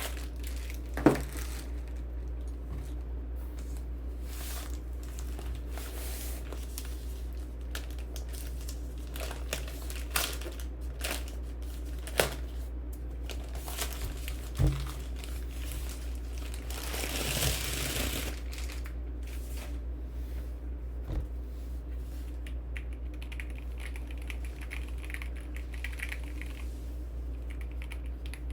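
Keyboard packaging crinkling and rustling as it is handled, with scattered sharp clicks and knocks and one longer rustle about 17 seconds in, over a steady low hum.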